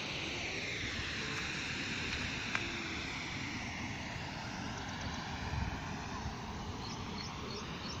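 Steady outdoor rushing noise with a slow falling sweep in its first few seconds, like something passing at a distance. A few faint high chirps come near the end.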